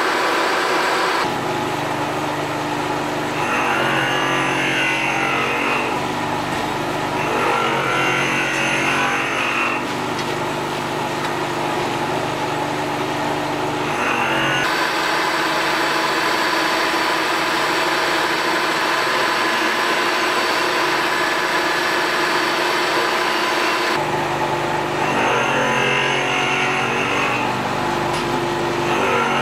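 Milling machine running with its end mill cutting a slot in a wooden handle scale: a steady motor hum with repeated stretches of coarse cutting noise. For several seconds in the middle, the hum gives way to a brighter, steady hiss from another tool.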